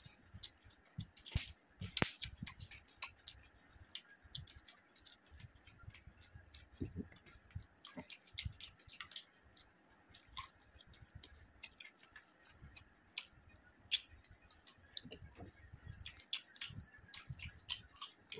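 Close-up eating sounds: chewing and wet mouth clicks, with fingers mixing rice and curry on a plate. It comes as many short, sharp clicks at an uneven pace.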